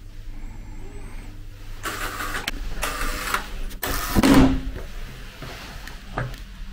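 Hotel room door being unlocked with a key card and opened: a faint high tone soon after the start, rustling and handling of the door, then a loud latch clunk about four seconds in and a smaller knock near the end.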